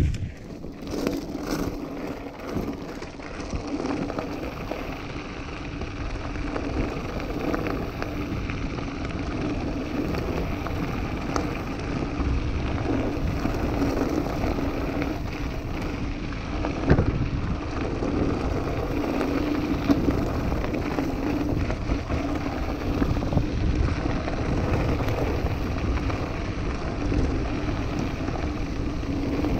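Mountain bike rolling over a loose gravel track: steady tyre crunch and rattle of the bike, with wind on the microphone. A couple of sharper knocks stand out in the second half.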